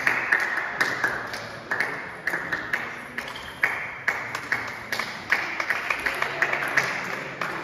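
Table tennis balls clicking off tables and bats in an irregular patter of sharp ticks, several a second, echoing in a large sports hall.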